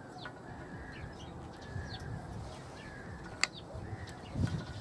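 Birds chirping in repeated short calls, with a single sharp click about three and a half seconds in and a dull knock near the end from handling the angle grinder's gearbox parts.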